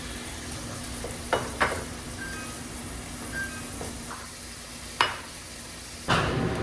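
Diced duck breast sizzling as it is stir-fried in a pan, with three sharp knocks of the utensil against the pan. Near the end a louder steady fan-like rush comes in.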